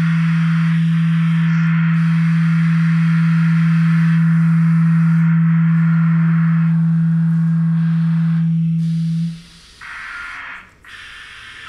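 Improvised electronic music: a loud, steady, nearly pure low tone held under a wavering hiss. The tone cuts off about nine seconds in, leaving a quieter hiss.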